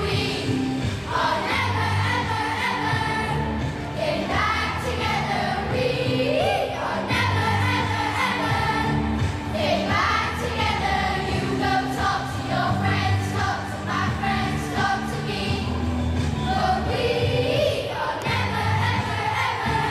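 A group of children singing a song together, with music underneath carrying a regular, repeating bass line.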